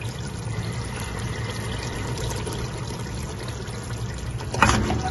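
Meat stew with tomato sauce simmering and sizzling in an open pressure cooker pot, a steady bubbling hiss. A short utensil clatter comes near the end.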